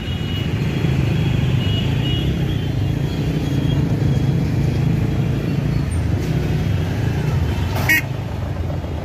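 Slow, congested street traffic: a steady hum of motorcycle and car engines close by. Near the end there is a brief high-pitched beep.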